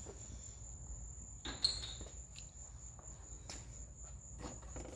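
A steady high-pitched tone, with a few soft clicks and knocks of small car parts being handled; the loudest knock comes about a second and a half in.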